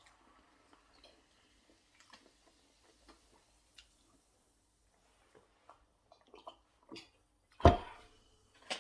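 Close-miked eating: soft chewing and wet mouth clicks from someone eating chicken wings, then one much louder short thump near the end.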